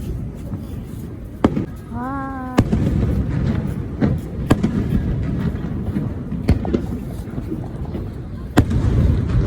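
Fireworks going off: a run of sharp bangs every second or two over a steady low rumble. A short voice call is heard about two seconds in.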